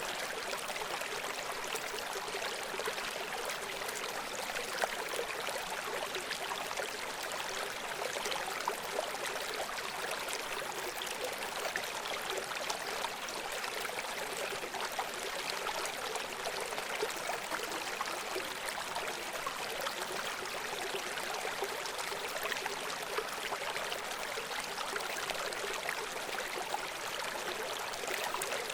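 River water running steadily over rocks, a continuous babbling rush with small splashes and gurgles.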